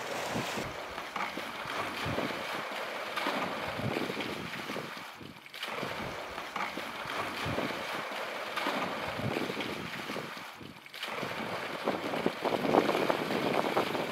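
Water splashing in a concrete water tank as someone swims, with wind buffeting the microphone. The sound dips briefly twice, about five seconds in and again near eleven seconds.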